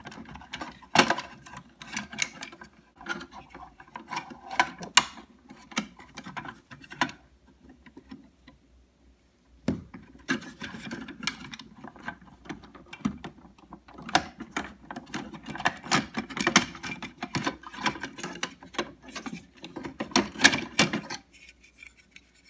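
Plastic K-Cup holder assembly of a Keurig coffee maker rattling and clicking as it is wiggled back and forth to work it loose from its housing. The clicks and knocks come irregularly in two spells, with a pause of a couple of seconds between them.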